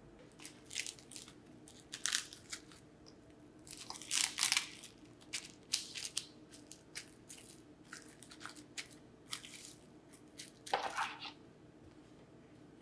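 Crisp, irregular crunching of someone biting into and chewing whole chong-gak (ponytail radish) kimchi, the firm radish snapping with each bite. There is a loud cluster of crunches about a third of the way in and another near the end.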